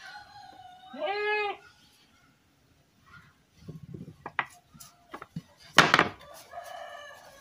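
Wood knocking and clattering as a cut round wooden disc is worked free of a board and handled, ending in one loud knock just before the end as it is laid down on the plank. About a second in, an animal gives one short, pitched call.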